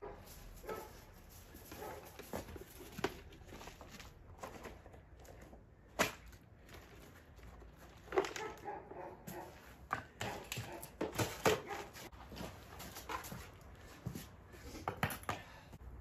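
Intermittent knocks and light clatter of painted wooden boards and a tool being handled and laid on bare soil, with a sharp click about six seconds in and a busier run of knocks from about eight to twelve seconds.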